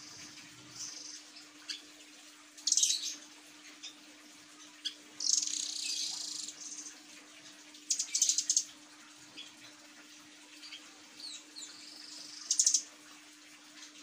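Caged blue nuthatch calling in four short bursts of rapid, high-pitched trilling notes, with a few fainter single chirps between them. A faint steady hum sits underneath.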